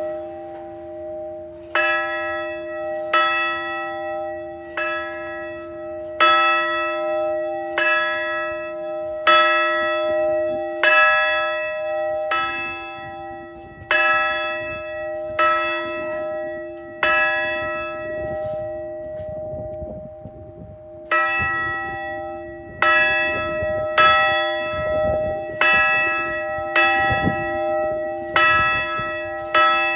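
A campus bell tolled one stroke at a time, about every second and a half, each stroke ringing on into the next. There is a pause of a few seconds a little past halfway. It is rung once for each new graduate.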